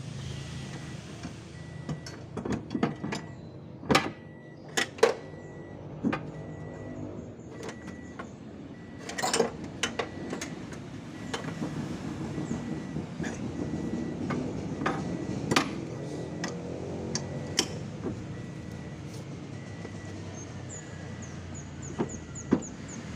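Scattered metallic clinks, taps and knocks of parts and tools being handled while a fuel pump assembly is taken apart, with a few louder knocks.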